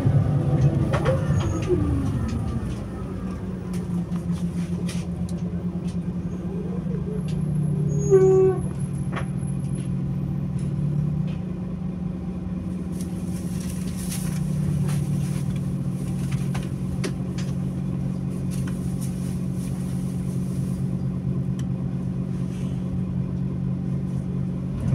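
Mercedes-Benz Conecto G articulated city bus with its diesel engine idling steadily. About eight seconds in there is a brief loud pitched tone, and a little later a hiss of air.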